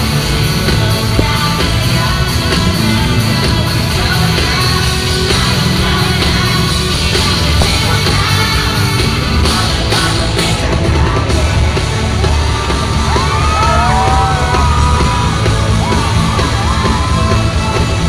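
Loud live concert music over an arena sound system, heard from among the audience, with a voice singing and fans yelling. Wavering sung notes stand out in the second half.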